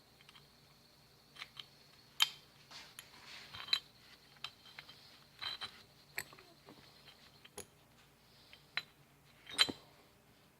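Small metal parts of a bicycle handlebar stem and its bolts clinking and clicking as they are handled and fitted, a scattered series of sharp taps with a short metallic ring, the loudest near the start and near the end.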